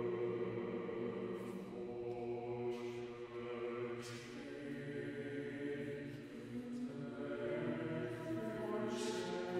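Choir singing a cappella: slow, sustained chords in several voice parts, with a few soft hissing 's' consonants from the words.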